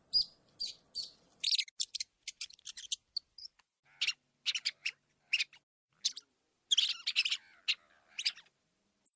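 Rats squeaking: a series of short, high-pitched squeaks at irregular intervals, some in quick clusters with brief pauses between.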